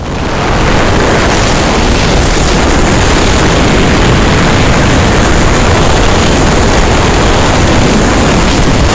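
Loud, steady rush of wind buffeting the microphone from a moving car, with road noise underneath; it starts abruptly at the beginning.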